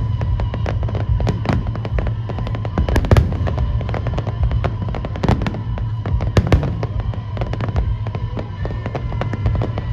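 Fireworks going off in quick, dense succession: a steady crackle of sharp bangs with several louder booms, over music playing throughout.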